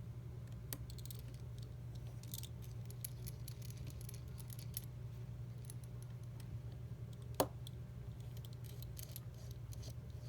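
Light clicks and ticks of small metal repair tools on iPhone parts, with one sharper click about seven seconds in, over a steady low hum.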